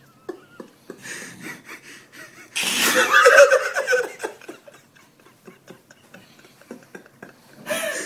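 A man asleep in bed snoring, with people laughing under their breath around him. The loudest stretch comes about two and a half seconds in and lasts about a second and a half, with a second loud burst near the end.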